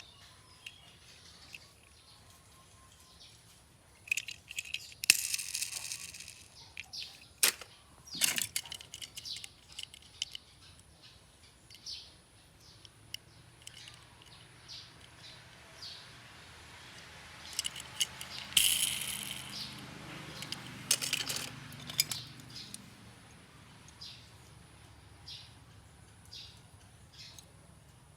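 Die-cast Hot Wheels toy cars being handled: scattered sharp clicks and light clinks of small metal-and-plastic parts, with a few seconds of rolling or scraping noise starting about 18 seconds in.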